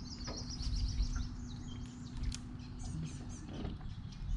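Birds chirping and trilling: a rapid high trill in the first second, then scattered higher chirps. Beneath them is a low rumble and a steady low hum that stops about three and a half seconds in.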